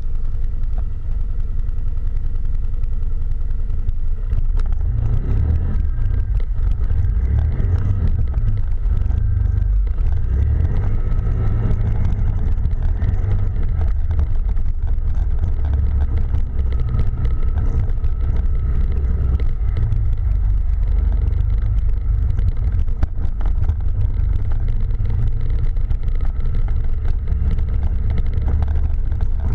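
Quad bike (ATV) engine running while riding, its pitch rising and falling with the throttle over a constant deep rumble.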